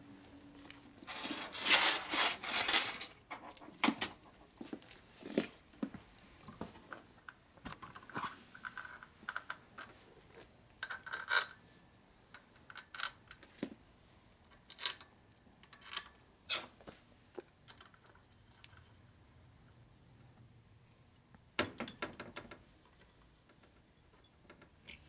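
Small metal engine parts and hand tools being handled on a workbench: a string of sharp clicks, clinks and light rattles with short quiet gaps between them, busiest in the first few seconds.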